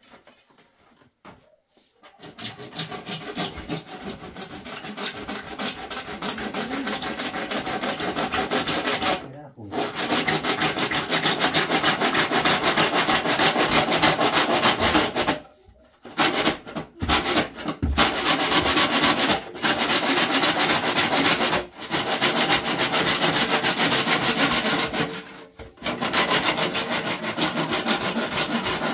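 Hand saw cutting through a plastic PVC drain pipe with steady back-and-forth strokes, starting about two seconds in and stopping briefly three times.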